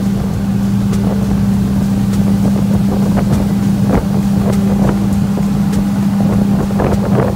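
Outboard motor of a center console boat running steadily under way, a constant hum, with wind buffeting the microphone and a few brief thumps.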